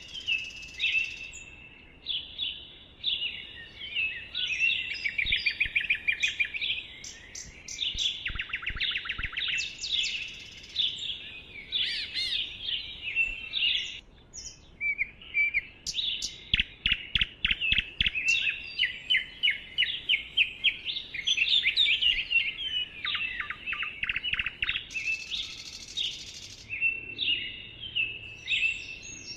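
Songbirds chirping and singing continuously in woodland, the phrases overlapping, with several quick trills of rapidly repeated notes.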